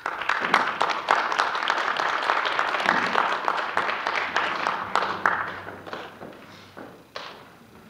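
Audience applause, many hands clapping, that breaks out suddenly, holds for about five seconds, then thins out and fades, with a last stray clap near the end.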